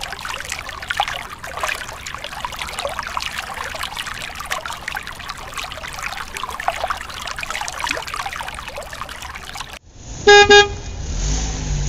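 A thin stream of water pouring and splashing onto a plastic toy jeep in a shallow tub of water. Near the end, a car-horn sound effect honks twice, loud and brief.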